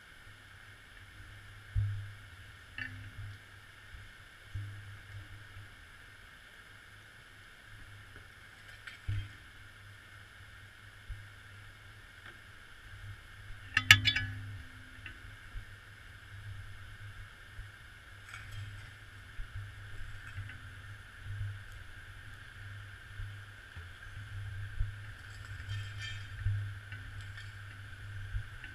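Muffled sound from inside a GoPro's waterproof housing hanging underwater on a line: a steady low hum with irregular dull knocks and thumps as the camera swings on the line. The loudest is a sharp knock about halfway through, as the camera lifts off the bottom.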